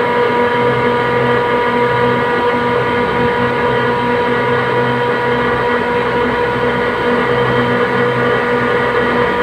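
Steady machinery drone at a constant level, with a fixed mid-pitched hum over a lower hum that swells and fades every second or two.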